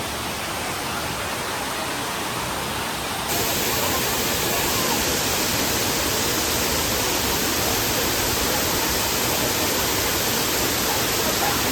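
Waterfall pouring: a steady, even rush of falling water that jumps louder and brighter about three seconds in.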